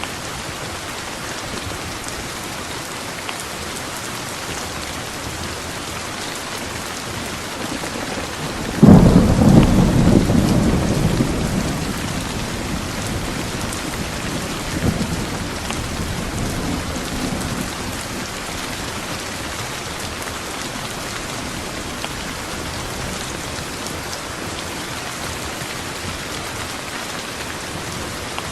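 Steady heavy rain, with a sudden close thunderclap about nine seconds in that rolls on as a rumble and fades away over the next several seconds.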